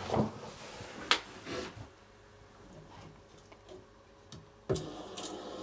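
Scattered light clicks and knocks of hands working the filling loop valve under a combi boiler, with a sharper knock about a second in and another near the end.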